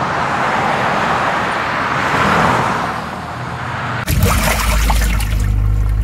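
Della portable twin-tub washing machine agitating a load: a steady rush of churning water, joined about four seconds in by the low hum of the wash motor.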